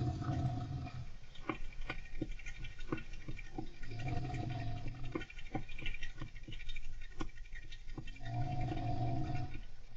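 A golden hamster scratching and rustling with many quick clicks, under a person's gentle snoring: three long, low snores about four seconds apart.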